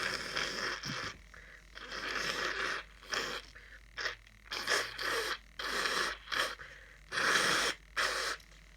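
A person with a head cold sniffing and blowing through a congested nose: about ten noisy nasal breaths in quick succession, some short and some up to a second long.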